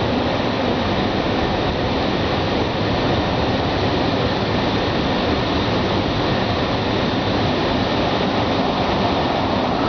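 Automatic car wash machinery running, a steady, unbroken rushing noise of water or air against the car, heard from inside the cabin.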